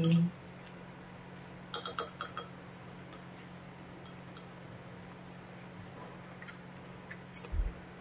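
Chopsticks and spoons clinking lightly against ceramic bowls during a meal: a quick cluster of clinks about two seconds in and a couple more near the end, one with a soft knock, over a faint steady low hum.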